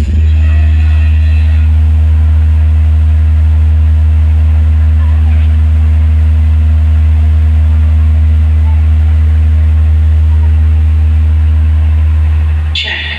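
DJ sound system's subwoofers playing a loud, steady low bass tone with no beat, a sound-check test of the bass.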